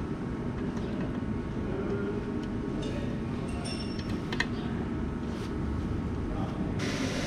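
Steady low outdoor background rumble, with a few small metallic clicks and clinks around the middle as M5 nuts are fitted to the lid of a fuel surge tank with a hand tool. Near the end the background turns to a brighter hiss.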